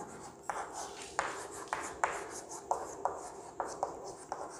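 Chalk writing on a blackboard: a string of short, irregular scratches and taps, roughly two a second, as letters are written.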